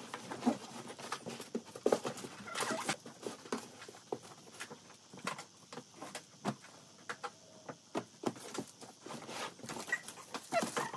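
A cardboard box being handled: it is shifted on a wooden floor and its flaps are bent and folded, giving irregular knocks, scrapes and cardboard rustling, with clothes rustling inside it.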